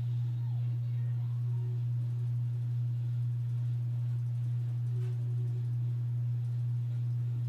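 A steady low electrical-sounding hum, with nothing else clearly heard over it.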